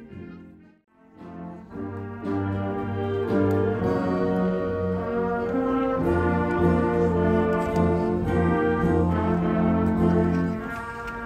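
A wind band playing live in slow, sustained brass chords over low notes. It comes in after a brief near-silent gap about a second in.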